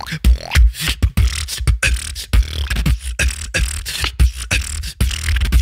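Human beatboxing into a close microphone: deep bass kicks and sharp snare-like clicks in a fast, steady rhythm.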